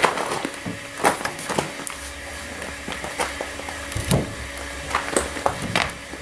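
Irregular knocks and clatter of wooden log-wall planks being handled and pushed into place, about seven sharp knocks spread unevenly, over a faint steady hum.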